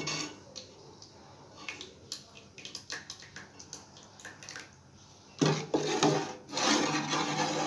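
A steel ladle stirring thick urad dal porridge in a steel pot. There are a few light clinks at first, then louder scraping and stirring from about five seconds in.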